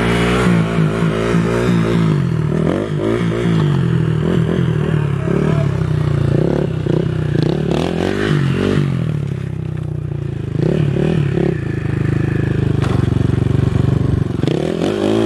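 2019 KTM 450 EXC supermoto's single-cylinder four-stroke engine revving up and down again and again while the bike is ridden in stunts, its pitch rising sharply near the end.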